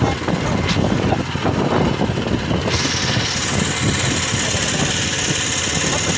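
A small engine running steadily aboard a fishing boat. About two and a half seconds in, a steady high hiss joins it.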